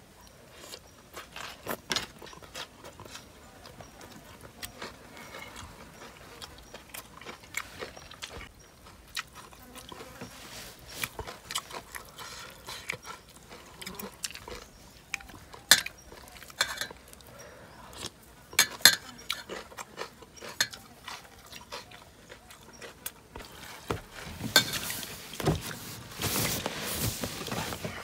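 People eating at close range: chewing, with sporadic sharp clicks and knocks of dishes and utensils. The clicks come thicker and louder in the last few seconds.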